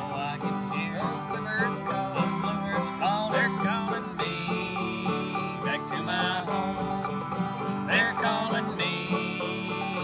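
Clawhammer banjo and acoustic guitar playing a bluegrass tune together: the guitar strums a steady rhythm under the banjo's quick plucked melody.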